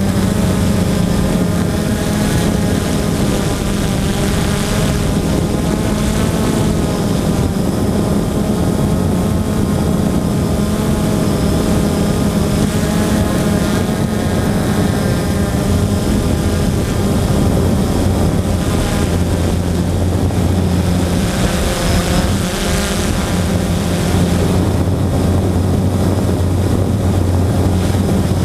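Blade 350 QX2 quadcopter's four brushless motors and propellers buzzing steadily in flight, heard up close from the camera on the drone. The pitch wavers a little as the throttle changes.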